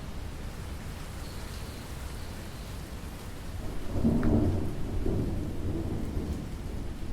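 Steady rainfall with a roll of thunder that swells up about four seconds in, peaks, and rumbles on as it fades.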